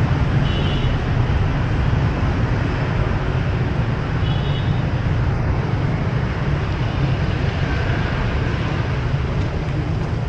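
Steady low rumble of city street traffic, with two short high-pitched beeps about half a second and four seconds in.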